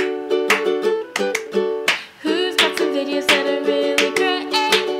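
Music: a plucked string instrument picking a quick, bright melody of short notes, with a brief pause about two seconds in.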